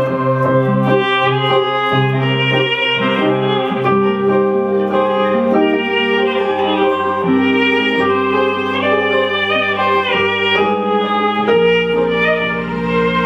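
Live instrumental trio playing a melody: violin over an electronic keyboard's sustained bass and chords, with a plucked guitar.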